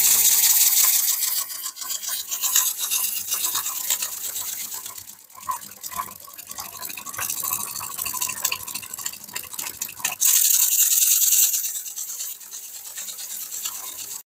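Small homemade oscillating-cylinder steam engine running fast, its cylinder hissing with rapid clicks of each stroke. The hiss is loud at first, drops away after about a second and a half, and swells again about ten seconds in as the cylinder's pivot axle is pulled tight by hand; the pivot has too much play, so steam escapes there when it is loose.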